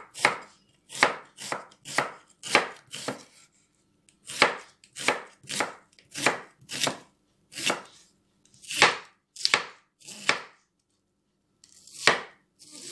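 Kitchen knife slicing an onion thinly on a wooden cutting board: steady separate strokes about two a second, with brief pauses about four seconds in and again near the end.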